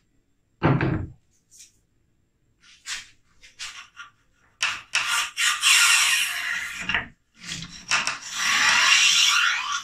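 A bore brush on a cleaning rod scrubbing inside the bore of a Martini-Henry rifle barrel: a dull knock near the start, a few short scrapes, then two long rasping strokes of a couple of seconds each in the second half.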